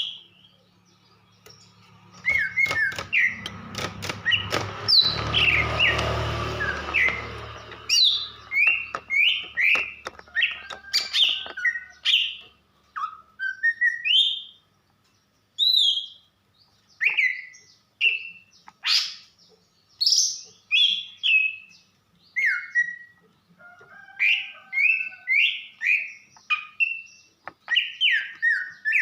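Female green leafbird (cucak ijo) calling in a long run of short, sharp chirps and downward-sliding whistled notes, about one or two a second. This is the kind of female call keepers play to stir a male into song. A broad rushing noise with a low hum sits under the calls for the first several seconds.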